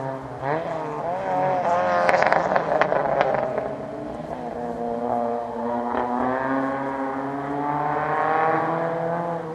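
Rally car engine revving hard through gear changes as the car drives the stage, its pitch dropping and climbing again several times. A burst of crackling comes about two seconds in.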